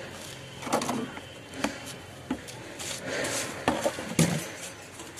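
Scattered short scrapes and rustles with a few light knocks, from soil-mix materials being handled.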